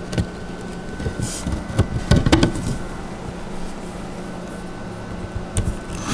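A few light knocks and clicks from hand assembly: a screw being set into a hole in a wooden panel and a cordless drill being picked up and brought to it, with the loudest knocks about two seconds in. A faint steady hum runs underneath.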